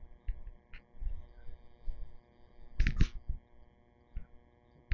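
Soft handling thumps as a hand-held camera is carried along, over a faint steady hum, with two sharp knocks close together about three seconds in.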